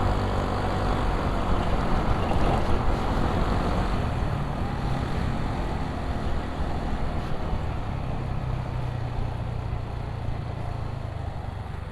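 Motor scooter engine running while riding, a steady drone with road and wind noise, its level slowly falling as the scooter eases off.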